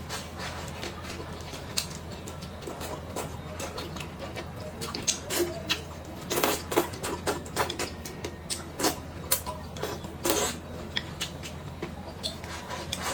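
Close-up eating sounds: chewing and wet mouth smacks with irregular small clicks, coming in denser runs about halfway through and again near the end, over a low steady hum.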